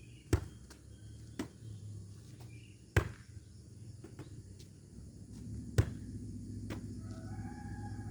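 Four sharp hits, irregularly spaced a second or more apart, with a rooster crowing in the background near the end.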